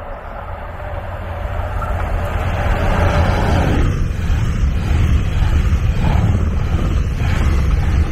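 Double-deck passenger train passing close by on an electrified line: a rumble that builds as it approaches, then a steady rush of wheels on rail with regular clacks about once a second as the bogies pass.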